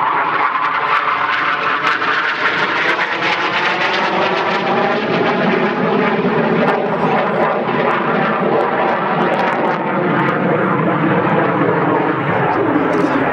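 IAR 99 Soim jet trainer's Viper turbojet passing overhead, a steady jet roar that slowly falls in pitch as the aircraft moves away.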